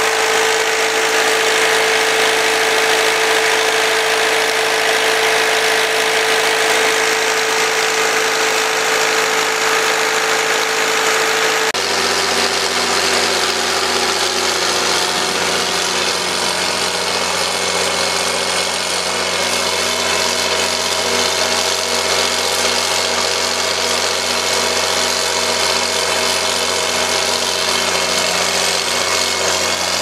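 Brand-new Case IH P85 four-cylinder diesel irrigation engine running steadily under load as it drives its irrigation well pump, with a strong steady tone. About twelve seconds in, this gives way to a six-cylinder John Deere diesel irrigation engine driving its pump, with a deeper, more even sound.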